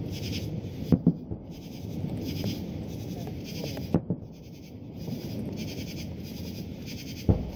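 Fireworks shells bursting with sharp booms: two close together about a second in, one about four seconds in, and one near the end, over steady low background noise.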